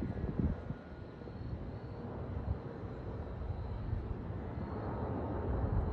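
McDonnell Douglas MD-11 jet passing overhead: a steady distant jet engine rumble that grows slightly louder near the end, with wind buffeting the microphone at the start.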